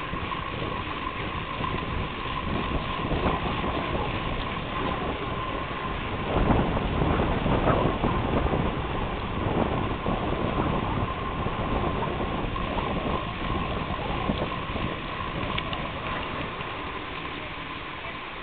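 Wind buffeting the microphone and the rumble of bicycle tyres rolling on a tarmac path while riding, with a thin steady whine underneath. The rumble grows louder about six seconds in.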